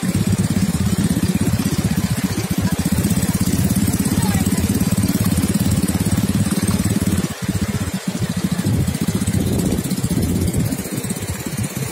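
Quad bike (ATV) engine running steadily, dipping briefly twice a little past the middle.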